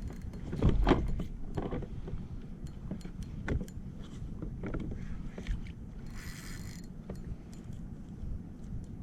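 A run of knocks and clatters, loudest about a second in, from gear being handled aboard a plastic fishing kayak, with a short buzzing rattle a little after six seconds, over a steady low rumble of water and wind.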